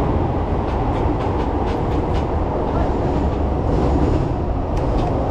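Fukuoka City Subway Airport Line train running, a steady loud low rumble with faint scattered ticks and clicks.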